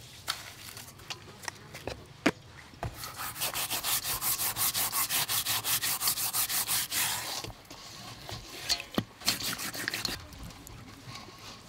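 Hands scrubbing coarse salt over a whole fish's scaly skin: a fast run of gritty scraping strokes, about seven a second, for some four seconds in the middle, with scattered single rubs and light clicks before and after.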